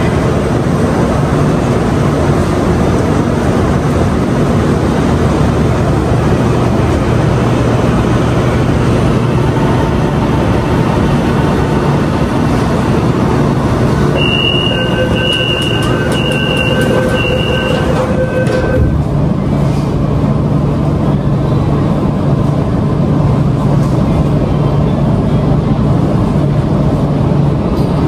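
Metro train standing at the platform with a steady hum from its onboard equipment. About halfway through, the door-closing warning beeps sound quickly and evenly for about four seconds as the doors shut. After that a lower steady hum settles in.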